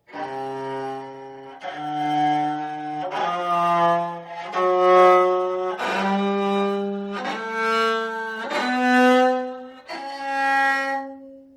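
Ajaeng, a Korean bowed zither with silk strings, being bowed string by string from the lowest to the highest: about eight sustained notes of a second and a half each, stepping upward in pitch through its do–re–sol tuning, the last note fading away.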